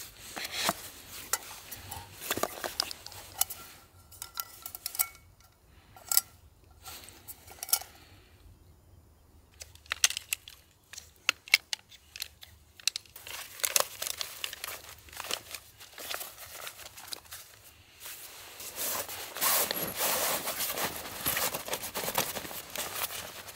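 Crinkling and rustling of plastic or fabric being handled, with many small clicks and knocks; the rustling grows denser near the end.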